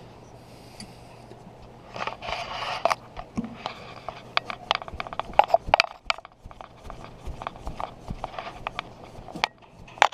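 Handling noise in an engine bay: scraping, rubbing and many sharp clicks of hands, a tool and clothing moving against metal, starting about two seconds in, over a steady low hum.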